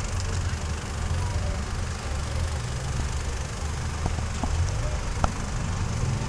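Off-road trial buggy's engine running at low revs with a steady low rumble as the buggy crawls over rocks. A single sharp click about five seconds in.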